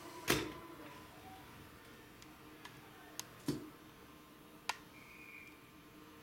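A few sharp clicks and knocks over a faint steady hum. The loudest comes just after the start, and three more follow over the next few seconds. A faint short high tone sounds about five seconds in.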